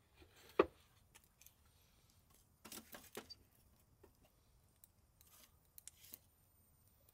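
Scattered clicks, knocks and rustles as sticks of firewood are handled and fed into a small metal wood-burning stove, with one louder knock about half a second in and a cluster of knocks around the middle.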